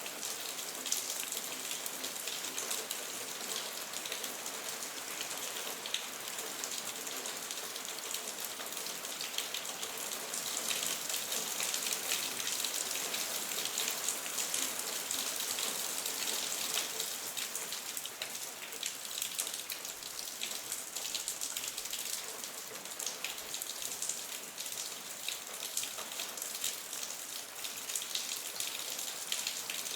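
Steady rain: a dense hiss of many small drops, swelling slightly in loudness for a few seconds in the middle.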